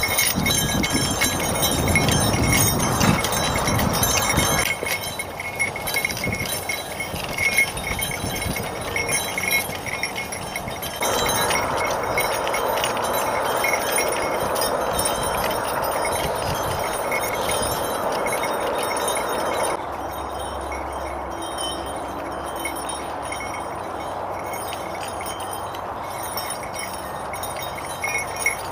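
Metal harness on a ploughing draft horse team jingling and chiming steadily, over a rushing background noise that shifts in level several times.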